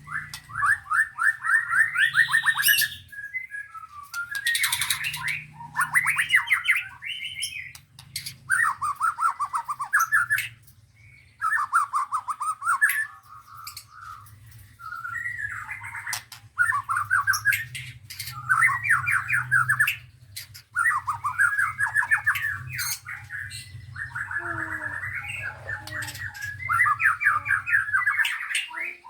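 Caged contest songbirds singing in loud, fast-trilled chattering phrases, each a second or two long, one after another with short breaks.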